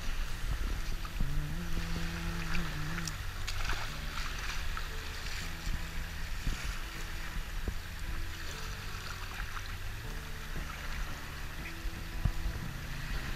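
Wind rumbling on the microphone over small waves lapping at a shallow beach, a steady outdoor water-and-wind noise.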